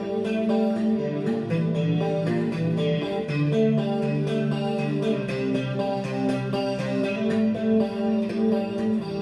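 Electric guitar played through compressor, chorus and delay effects: picked notes and chord tones that sustain and overlap as they change about every second.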